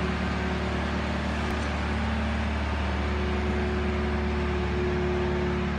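Steady machine hum with a strong low drone and a faint held tone that joins about three seconds in.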